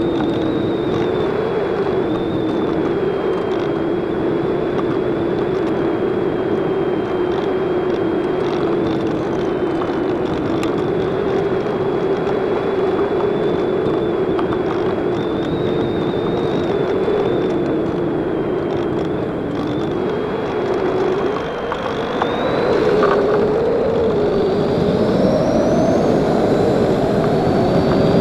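Electric motor and propeller of an Easy Glider RC plane, heard from a camera on board: a steady droning whine with wind rushing over the microphone. The pitch wavers and climbs over the last several seconds.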